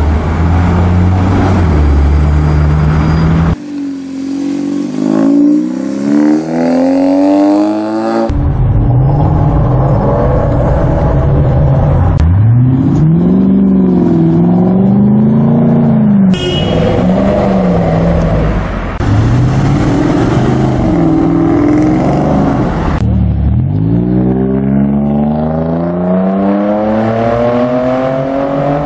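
High-performance car engines accelerating and revving in a string of short clips cut together. A Porsche 911 Turbo S pulls away first. A Lexus IS-F's V8 then revs up and down several times as it drives past. Several times an engine note climbs steeply as a car accelerates hard.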